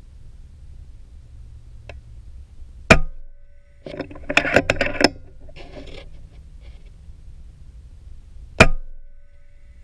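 Two sharp shots from a .30-calibre FX Impact M3 PCP air rifle, one about three seconds in and one near the end. About a second after the first shot there is a short run of rapid clicking and rattling.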